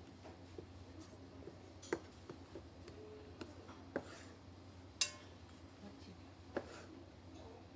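Kitchen knife cutting soaked kelp on a plastic cutting board: a few sharp knocks of the blade on the board, the loudest about five seconds in, with quieter handling of the wet kelp between them. A low steady hum runs underneath.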